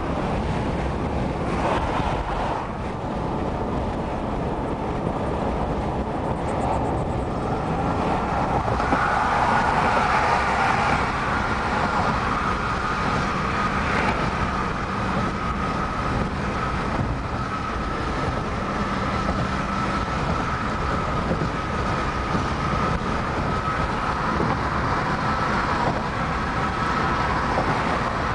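Steady road noise from inside a moving car's cabin: tyres and engine running at highway speed. A faint steady whine comes in about nine seconds in.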